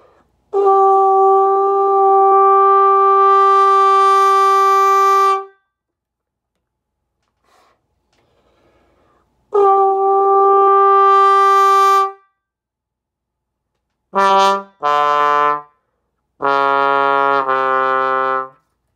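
Bass trombone played with a Windy City straight mute: two long held notes at the same pitch, then four shorter notes in a lower register.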